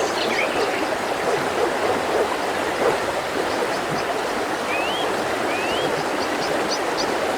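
Mountain river flowing in a steady, even rush of water. A bird calls twice with short rising whistles about five seconds in.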